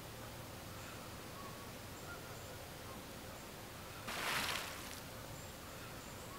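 Quiet outdoor background with faint bird chirps; about four seconds in, a plastic bucket dipped into lake water gives a short splash and gush of water lasting about a second.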